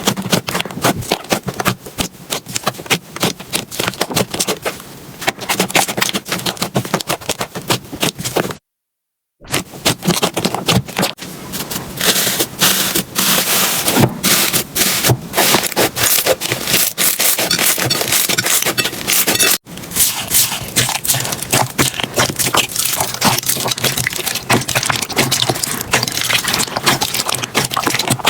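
Slime being squeezed, pressed and stretched by hand, giving dense crackling, popping clicks and scraping. The sound breaks off briefly about a third of the way in and again about two-thirds in.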